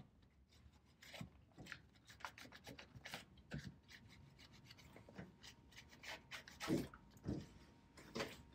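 Faint, irregular rubbing strokes of a microfiber towel wiping over a car battery and the engine-bay plastics around it.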